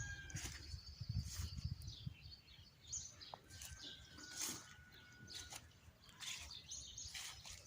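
Small birds chirping faintly in scattered short calls, with a thin steady note held for about two seconds midway. A low rumble runs under the first two seconds.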